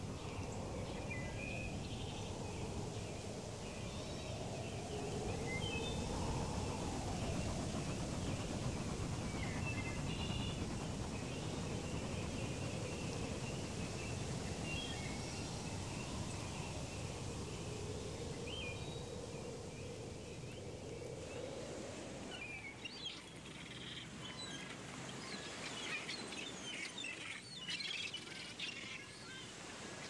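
Nature ambience with scattered bird chirps over a steady low rumble and a slowly rising and falling tone. About two-thirds of the way through, the rumble drops away and quicker, busier bird chirping takes over.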